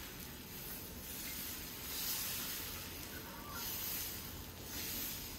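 Dosa batter hissing faintly on a hot pan as a ladle spreads it in circles, the hiss swelling a few times with the passes of the ladle.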